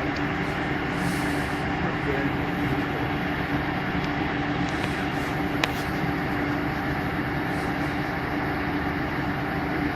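Bendix 7147A washing machine spinning its drum at steady speed: a constant motor hum with a dense rumble. One short click about halfway through.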